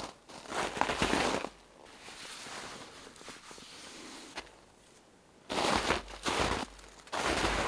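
Footsteps crunching in snow, pausing for a few seconds of softer rustling as a hand brushes the moss on a boulder, then crunching again near the end.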